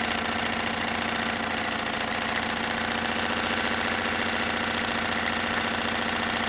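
Luton Bowman PW202 overtype toy steam engine running steadily on live steam, a fast, even beat from the running gear over a constant hum, running smoothly.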